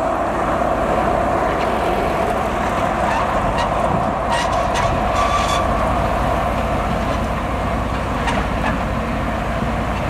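Motor grader's diesel engine running steadily as the machine moves slowly over a wet dirt road, with a few short clicks about halfway through.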